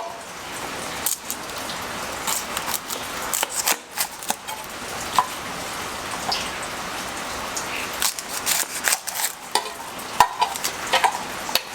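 Knife cutting an onion, with scattered sharp clicks and scrapes over a steady hiss.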